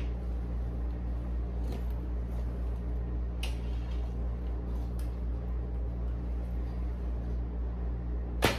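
Steady low hum with a few faint clicks and rustles; near the end a recurve bow is shot, two sharp snaps a fraction of a second apart as the string is released and the arrow strikes.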